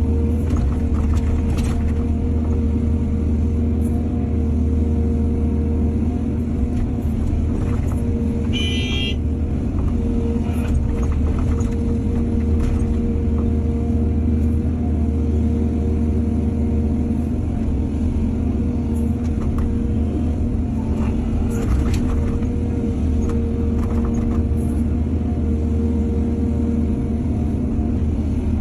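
Heavy diesel earthmoving machinery, an excavator loading soil, running steadily with a deep, constant rumble. Occasional knocks are heard throughout, and a brief high-pitched squeal comes about nine seconds in.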